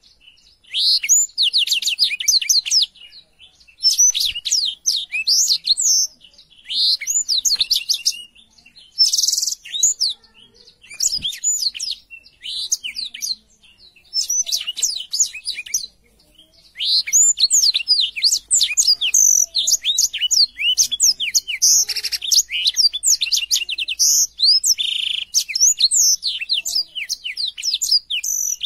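Black-throated canary (blackthroat) singing a fast song of high trills and chirps. It sings in phrases of a second or two with short pauses at first, then almost without a break from a little past halfway.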